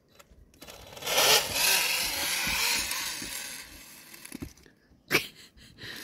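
Small motor of a radio-controlled, 3D-printed model snowmobile whirring as it drives its track through snow too deep for it, coming in sharply about a second in and fading out after a few seconds. A sharp click near the end.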